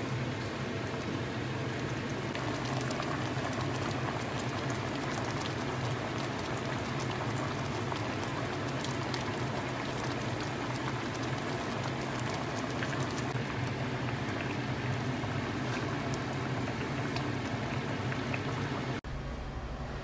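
A pot of humba, braised pork leg in dark soy braising sauce, simmering on a stovetop: a steady bubbling with many small pops over a low steady hum. It cuts off suddenly about a second before the end.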